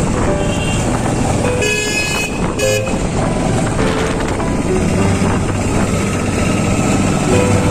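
Motorcycle riding along a road: steady engine and wind noise, with a vehicle horn honking about two seconds in and again briefly just before three seconds.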